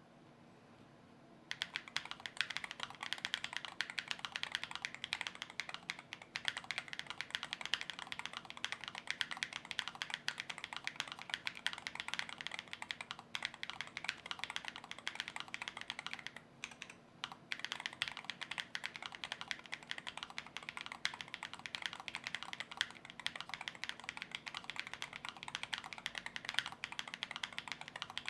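Typing on a Chilkey ND75LP low-profile mechanical keyboard with its stock, unmodded POM Aster switches: a fast, continuous run of light clacks. It starts about a second and a half in and pauses briefly twice, a few seconds in and again just past halfway.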